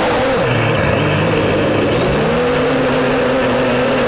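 A drone's electric motors and propellers whine, recorded on board, over a steady rush of air. The motor pitch drops just after the start as the drone descends, then climbs again about two seconds in.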